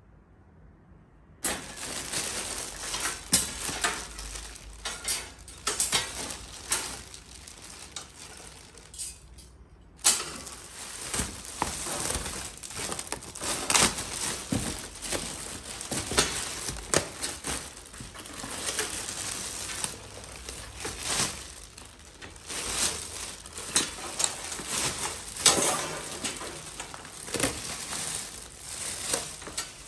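Clear plastic wrapping crinkling and crackling as it is handled and pulled off white metal wire drying-rack sections, with light clinks and knocks of the wire frames. It starts about a second and a half in and breaks off briefly about ten seconds in.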